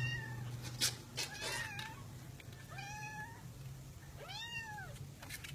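A cat meowing four times, short arching calls that rise and fall in pitch, with a few sharp clicks between them and a steady low hum underneath.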